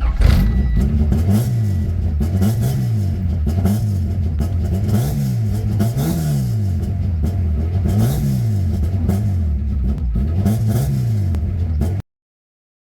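H2B-swapped Honda Civic's four-cylinder engine revved up and down over and over, about once every second or so, then cut off abruptly near the end.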